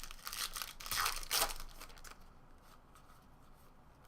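A trading-card pack wrapper being torn open and crinkled. The ripping and crinkling lasts about two seconds, loudest a little after the first second, then gives way to faint handling.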